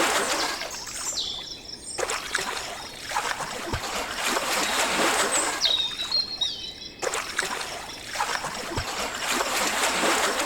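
Water splashing and trickling, swelling and fading in repeated stretches, with a few brief high squeaky tones.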